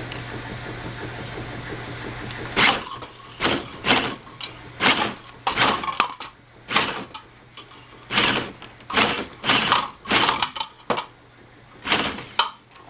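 Copper wire stripper at work, stripping insulation off wire fed from a spool. A steady low hum comes first; a little under three seconds in, a run of about a dozen short, sharp rasping bursts begins at uneven spacing, roughly one a second or faster.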